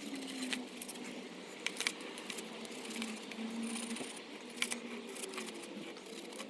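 A stiff brush scrubbing between the degreased rear cassette gears of a mountain bike, with irregular light metallic clicks and scrapes.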